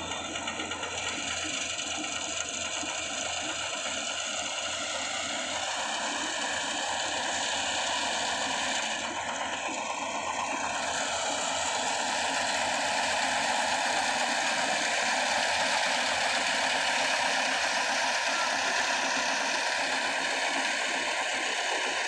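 Compact tracked rice combine harvester running steadily as it cuts rice, a dense mechanical rattle and hum that grows a little louder about halfway through.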